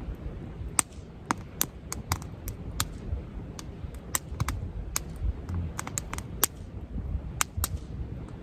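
Wood campfire crackling: irregular sharp pops and snaps, several a second, over a low steady rumble.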